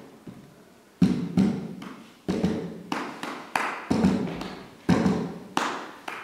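Hands slapping an upturned plastic crate like a drum: about nine sharp hits in a loose, uneven rhythm, each trailing off with echo.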